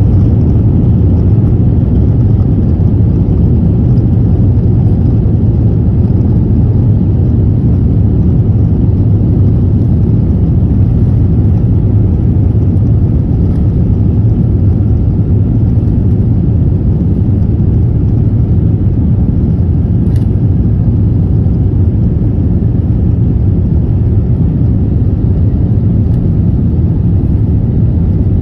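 Steady low rumble inside an Airbus A350 cabin as the airliner rolls along the ground, with the sound of its engines and wheels holding level and loud throughout.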